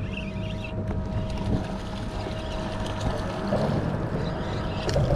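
Wind on the microphone and water lapping at a small fishing boat, over a steady low hum.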